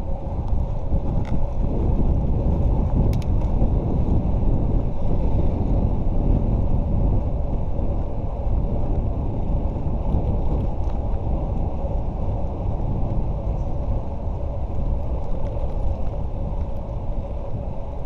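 Steady low rumble of wind buffeting the microphone of a camera on a bicycle being ridden along a road, with road noise underneath.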